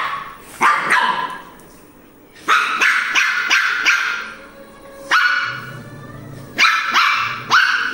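Pomeranian barking in short, sharp, high yaps: a single bark, then a quick run of about five, then a few more spaced out near the end.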